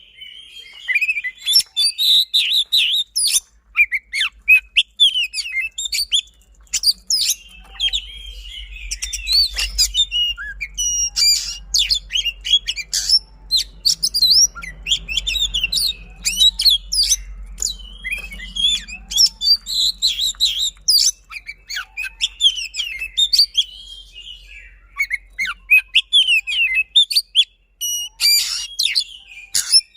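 Oriental magpie-robin (kacer) singing a fast, dense song of rapid trills, sharp whistled notes and rolling phrases, with barely a gap between them. A faint low hum lies under it in the middle.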